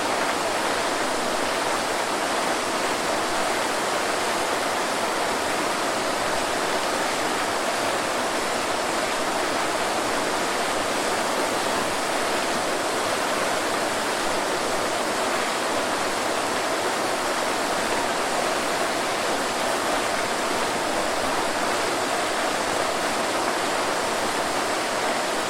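Waterfall: water falling in a steady, unbroken rush, hissy rather than deep, with little low rumble.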